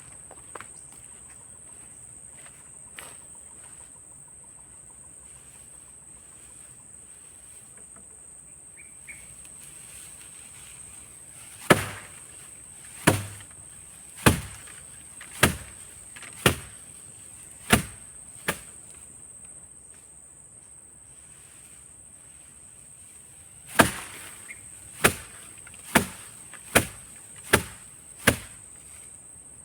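Two runs of sharp blows, about one a second, like a blade or tool chopping, over a steady high insect drone.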